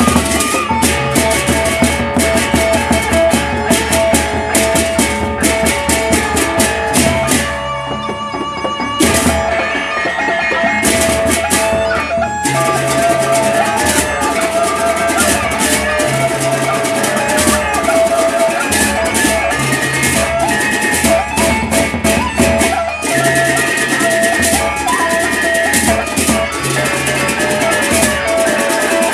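Lombok gendang beleq ensemble playing: two large barrel drums beaten with sticks, over a dense clatter of hand cymbals and ringing gongs. The cymbal clatter thins out briefly about eight seconds in, then comes back in full.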